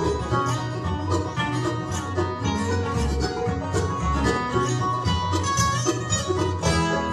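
Live bluegrass band playing: fast-picked banjo over strummed acoustic guitars and mandolin, with a steady driving rhythm.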